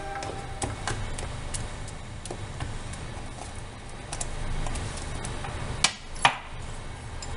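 Thick pineapple jam cooking in a frying pan on an induction hob, with a steady low hum and scattered small ticks and pops. About six seconds in come two sharp knocks close together as the wooden spatula is set down.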